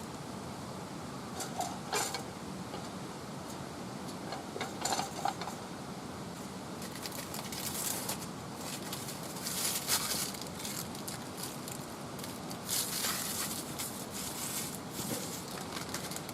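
Wood fire burning with irregular crackles and pops over a steady hiss.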